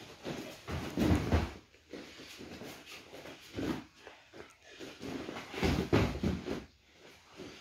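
Grapplers' feet and bodies scuffing and thumping on a padded mat as they grip and step in for a judo throw. The heaviest thumps come about six seconds in, as one of them is thrown down onto the mat.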